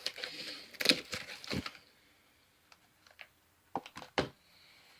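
Handling noises: a rustle in the first couple of seconds, then a few sharp, spaced-out clicks and knocks as things are picked up and set down.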